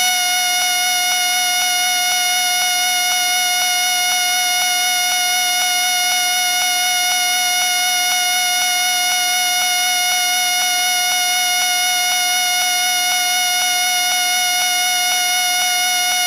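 A whistle held in one long, unbroken note at a steady pitch, shrill and buzzy.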